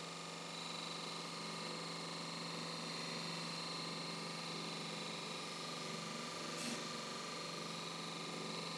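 Electric belt grinder running with a steady hum while a steel lathe gouge held in a sharpening jig is pressed lightly against its 100-grit belt, grinding metal and throwing sparks. A steady high whine joins just after the start, and there is a short tap about two-thirds of the way through.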